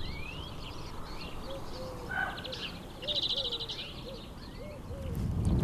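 Several wild birds calling and singing: short rising chirps and twitters, a fast high trill about three seconds in, and a run of short low hooting notes through the middle, over a steady low rumble.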